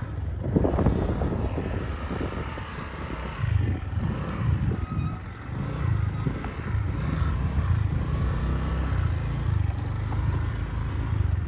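A vehicle running along a dirt track, with wind rumbling on the microphone.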